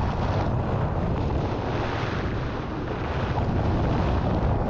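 Strong wind buffeting the microphone in a steady low rumble, over the wash of surf breaking on the beach.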